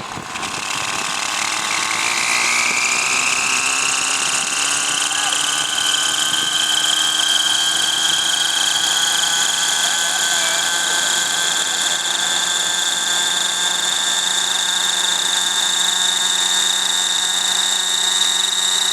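Aeolus 50 model helicopter's nitro engine and rotor spooling up: the whine rises in pitch over the first few seconds, then holds as a steady high-pitched whine.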